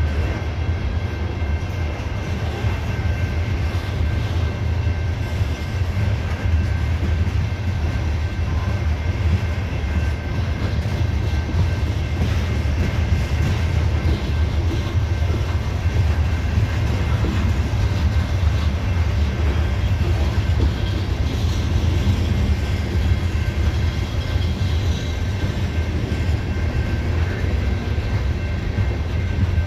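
CSX coal train's cars rolling past close by: a steady, heavy rumble of steel wheels on rail with a faint steady high whine over it.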